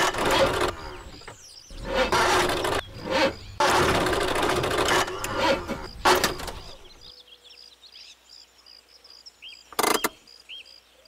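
Honda City sedan's engine running rough in uneven bursts, sputtering for several seconds and then cutting out about two-thirds of the way through, a sound of something going wrong in the engine. Birds then chirp, with one short knock near the end.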